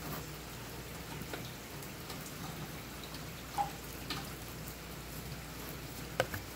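A few faint clicks and taps of small metal parts being handled, a coil spring and the aluminium body of a brake proportioning valve, over a steady background hiss; the sharpest click comes about six seconds in.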